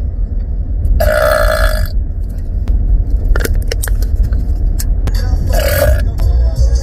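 A person burping twice after chugging a can of soda. The first burp comes about a second in and lasts almost a second; the second comes near the end. A steady low rumble runs underneath.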